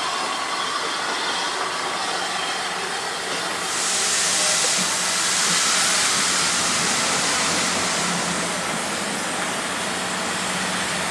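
Carriages of a steam-hauled train rolling past close by, with a steady hiss of escaping steam that gets louder about four seconds in and eases off after a few seconds.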